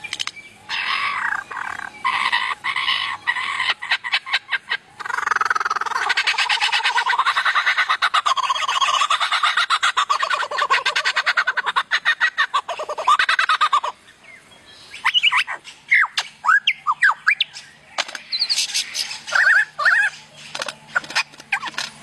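Lyrebird singing: fast, rattling, chattering phrases, the longest running on for most of ten seconds, then a string of short, sharp whistled notes about two-thirds of the way in, then rattling again.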